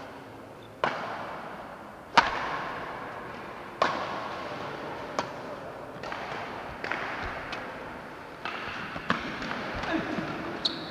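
Badminton racquets striking a shuttlecock in a rally: sharp cracks about every one to one and a half seconds, each echoing briefly in a large hall, the loudest about two seconds in.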